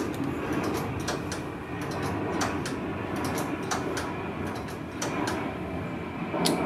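Scattered light clicks and taps at irregular intervals from hands and tools working at a wheel's disc brake during brake bleeding, with a sharper click near the end, over a steady background noise.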